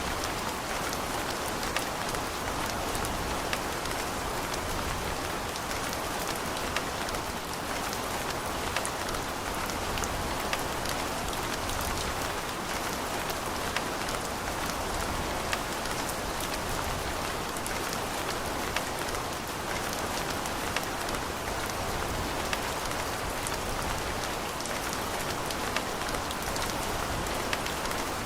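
Steady rain falling, a constant hiss of rainfall with scattered individual drops ticking on a hard surface.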